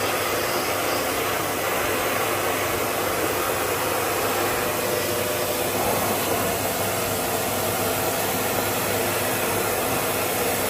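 Vacuum cleaner running steadily, sucking loosened dust out of a sliding window's track; an even rushing noise with a faint steady hum.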